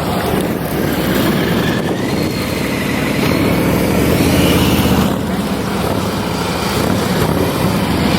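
Motorcycle engine running at low speed through a tight cone course, its note rising and falling a little with the throttle.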